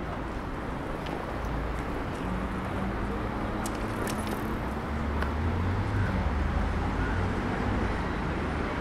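City street traffic noise. A low engine rumble swells about five seconds in and eases off again near the end, as a motor vehicle passes.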